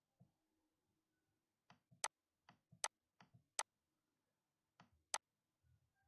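Computer mouse button clicks: four sharp clicks between about two and five seconds in, each with a softer tap just before it.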